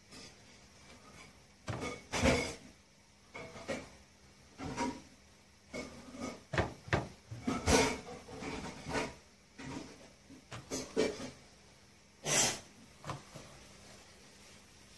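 Irregular wooden knocks and taps, some with a short scrape, from a rolling pin and utensils on a wooden pastry board and bowl while dough is rolled and filled for oshak dumplings. About a dozen in all, the loudest about two, eight and twelve seconds in.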